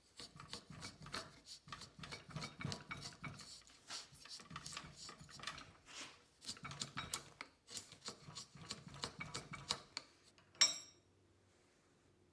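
A hand file rasps across a forged steel knife blade in quick repeated strokes. About ten and a half seconds in there is a single sharp metallic clink.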